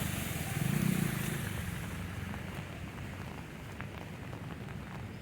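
A motor vehicle's engine running close by, then fading away as it moves off, over a steady hiss of monsoon rain.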